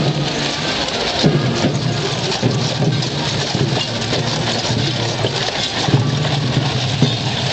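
Hooves of many cavalry horses moving past over gravel: a dense crunching clatter of overlapping hoof strikes. A low hum comes and goes underneath.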